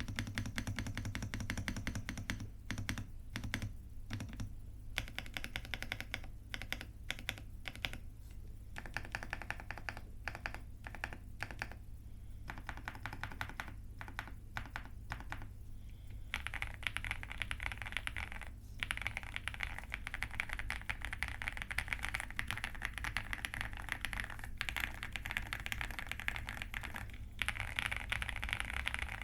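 RK R75 mechanical keyboard with Yanyu switches and double-shot Cherry-profile keycaps being typed on: a continuous run of rapid key strokes in the switches' creamy sound profile, with short pauses in the first half and faster, denser typing from about halfway. A low steady hum runs underneath.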